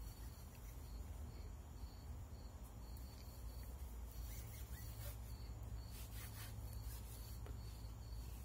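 Faint rubbing and handling noise of a cloth lubricating wipe drawn along a double-barrel shotgun's barrels and wooden fore end, with a few light taps. A low steady hum runs underneath.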